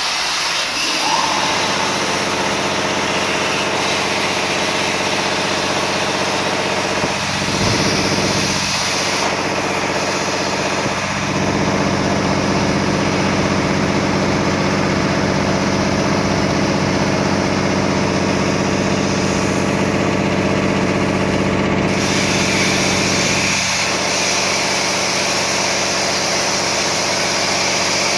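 Industrial cutting machinery running steadily: a continuous hum of several steady tones under a hiss. The highest part of the hiss drops away about nine seconds in and comes back about twenty-two seconds in.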